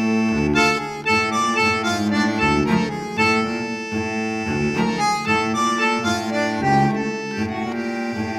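Instrumental background music: a melody changing note several times a second over a held low note.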